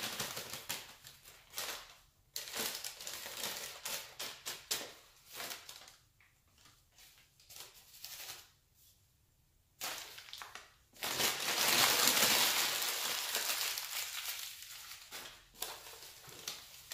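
Crumpled newspaper packing rustling and crinkling as it is shaken and handled over a plastic tub to get crickets out of it, in a string of crackly bursts with a quiet lull in the middle and a longer, louder rustle about eleven seconds in.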